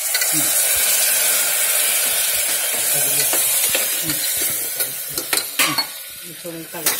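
Hot kofta masala in a pressure cooker sizzling loudly as a little water is poured in and stirred. The hiss dies down over the last couple of seconds, and a metal spoon clinks against the pot a few times near the end.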